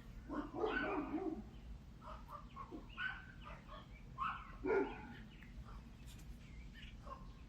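Dogs barking, a run of barks about half a second in and shorter barks a few seconds later.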